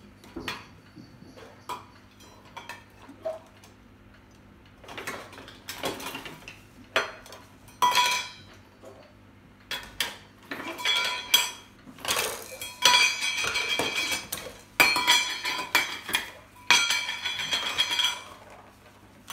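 Metal bird toys clattering and clinking in irregular bursts, with ringing metallic tones, as a cockatoo plays with them; sparse at first, then busier and louder in the second half.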